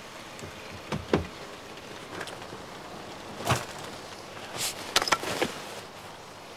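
Several separate short knocks and scuffs over a steady low hiss: a pair about a second in, the loudest about three and a half seconds in, and a quick cluster near the end.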